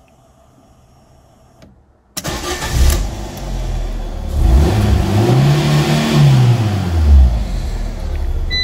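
Ford Ka petrol engine cranking briefly and catching about two seconds in, then revved once, rising and falling back to a steady idle. It is the first start after the crash fuel cut-off was reset and the tank refilled.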